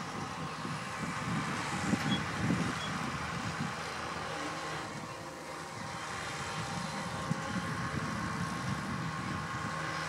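Tractor engine running steadily while it pulls a Vicon round baler, the baler's mechanism running with it.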